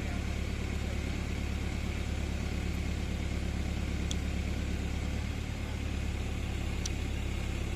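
Truck-mounted crane's engine running steadily at a low, even drone while the crane holds a concrete electric pole being raised.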